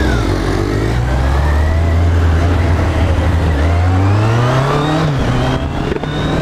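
Kawasaki Z800 inline-four on its stock exhaust, running under way. Its note holds fairly steady, then climbs for about a second and a half and drops sharply about five seconds in, as at a gear change.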